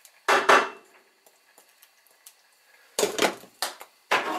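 Clatter of a saucepan and its glass lid being handled on the hob: two quick knocks about half a second in, then several more knocks from about three seconds in.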